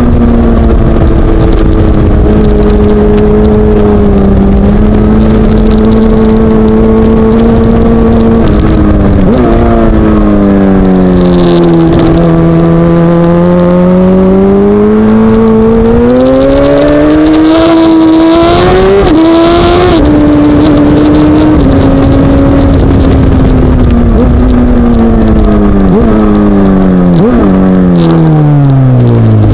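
Suzuki GSX-R1000 K7's four-cylinder engine under hard riding, heard from onboard. The revs step and swing with gear changes and corners, dip in the middle, climb high, then fall steadily near the end as the bike slows with a few sharp downshift blips.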